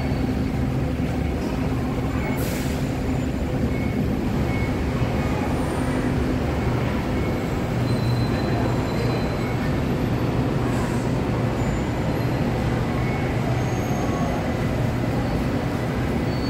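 Steady city traffic noise: a low, constant rumble of engines and tyres from a busy multi-lane road.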